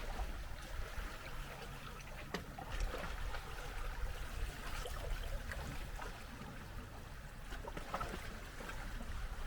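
Gentle sea water lapping and trickling at the shore, with many small irregular splashes and ticks over a steady low rumble.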